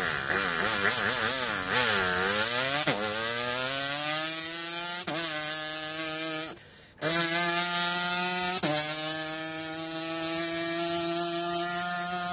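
A boy vocally imitating a racing engine: a wobbling low burble that then revs up in pitch through several gear changes, each shift a quick break and drop before the next climb. A short pause for breath comes about two-thirds of the way through, and it ends on a steady high note.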